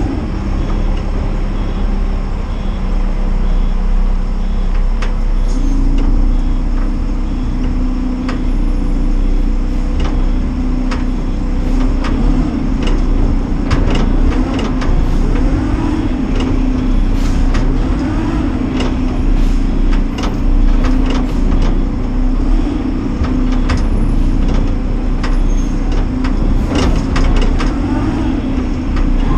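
Side-loader garbage truck's engine running, stepping up to a higher, steady speed about five seconds in. Repeated clanks and knocks come through the second half.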